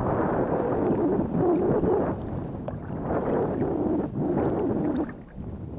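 Water sloshing around a wading angler, mixed with wind buffeting the microphone, in surges a second or two long that ease off near the end.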